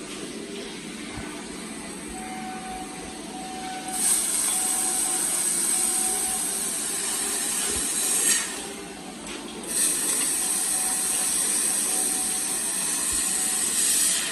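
Robotic welding, its hiss starting about four seconds in and running about four seconds, then starting again just before ten seconds in for about four more, over a steady machine hum.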